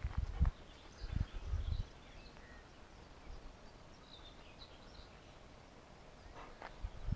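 A few footsteps on a gravel path in the first two seconds, then a quiet stretch with faint, short bird chirps.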